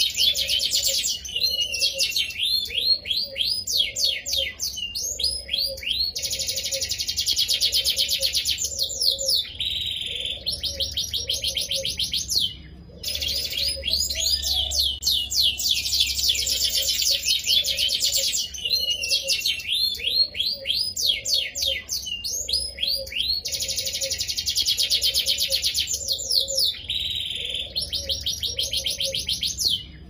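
Domestic canary singing a long, continuous song: fast buzzing trills alternating with runs of quick down-slurred notes, with a brief pause about halfway through.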